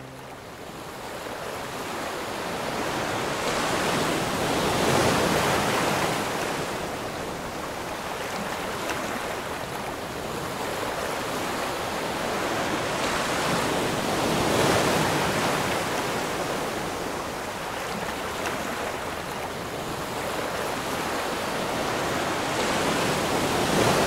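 Artificial waves in a wave pool churning and breaking, the water noise surging louder and softer every few seconds.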